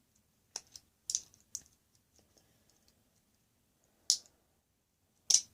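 Scattered sharp clicks and taps from handling a homemade fidget toy made of a metal binder clip, a marble and a rubber band, as the marble is fitted back in. The loudest clicks come about four seconds in and near the end.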